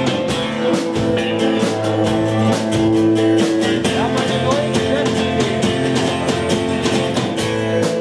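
Live band playing: strummed acoustic guitar with electric guitar and bass over a steady drum beat.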